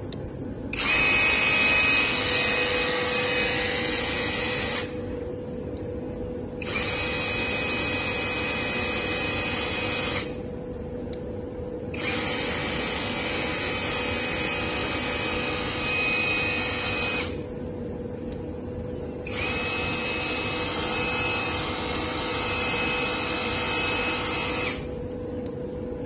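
Electric motor of a cordless modular tool handle driving its water-gun washer head, switched on and off four times in spells of about four to five seconds with short pauses between, a steady high whine while it runs.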